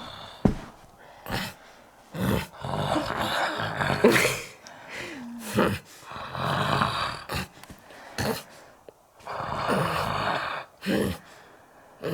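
Exaggerated mock snoring, voiced by a person for a puppet: long noisy snores about every three to four seconds, with short sharp sounds in between.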